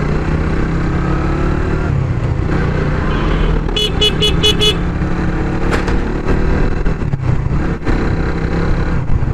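Suzuki GSX-R150's single-cylinder engine running at low road speed. About four seconds in, a vehicle horn sounds five quick short beeps.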